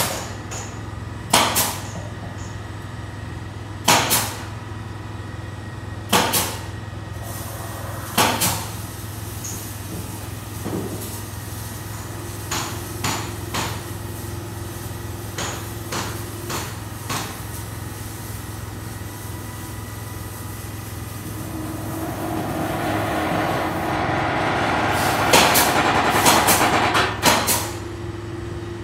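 Sharp metallic knocks, like hammer blows on steel, about every two seconds over a steady low machine hum. Past the middle a louder machine noise swells, with several quicker knocks, then fades near the end.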